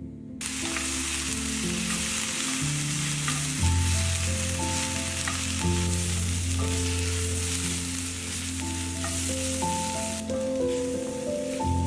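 Food sizzling in a hot frying pan, a steady hiss that starts about half a second in and dies away shortly before the end, over soft instrumental background music.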